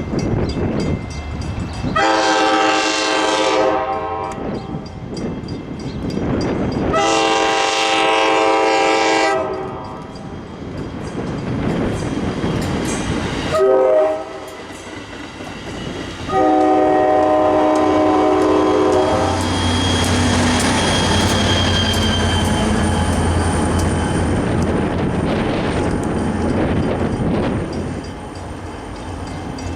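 Diesel locomotive air horn sounding the grade-crossing pattern: two long blasts, a short one and a long one. The train then passes with a steady low engine rumble and wheel noise.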